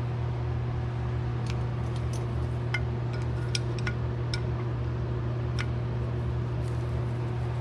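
Light, scattered metallic clicks and clinks of small carburetor parts and tools being handled during disassembly, over a steady low hum.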